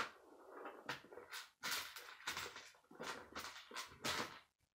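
K'nex plastic pieces being handled and pushed together: irregular sharp clicks and short rustles, the busiest stretch from about a second and a half to four seconds in.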